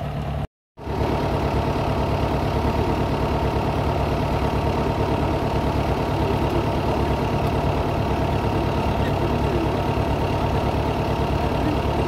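Crawler drill rig running steadily: a loud, even engine and machinery noise with a dense rattle. It drops out for a moment about half a second in, then carries on unchanged.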